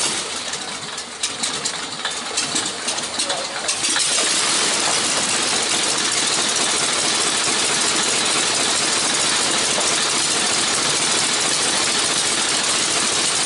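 Radial engine of a Spirit of St. Louis replica monoplane catching just after being hand-propped. It fires unevenly for about the first four seconds, then settles into a steady, even run with the propeller turning.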